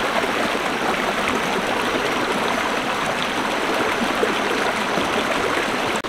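Shallow rocky stream running over small rapids: a steady, even rush of water.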